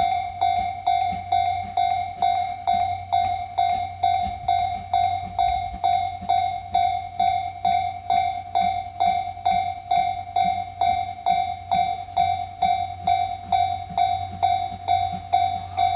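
Japanese railway level-crossing warning bell ringing: a single-pitched electronic ding repeating steadily about two and a half times a second, each stroke dying away quickly. It signals that the crossing is closed for a train movement.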